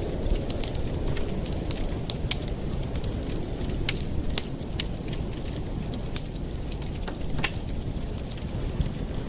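Campfire burning with a low steady rumble of flames and irregular sharp crackles and pops of burning wood, a couple of louder pops about four and seven and a half seconds in.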